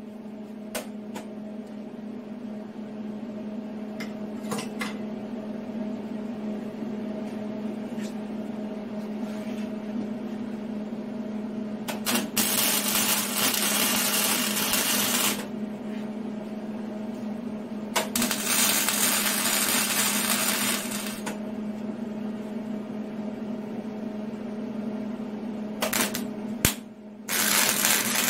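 Flux-core MIG welding with a Hobart Handler 120: arc crackle in bursts a few seconds long, about 12 s and 18 s in, with another starting near the end, over a steady hum. A few light clicks come in the first several seconds.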